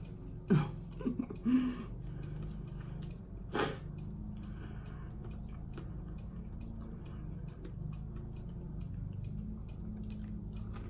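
Someone eating a fried cheese wonton: a few short mouth sounds and hums early on, one sharp crunchy bite about three and a half seconds in, then quiet chewing over a steady low hum.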